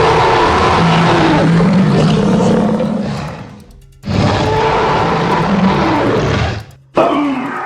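Film-style dinosaur roars, recreated movie sound effects: two long, loud calls of about three seconds each, then a short third call starting near the end.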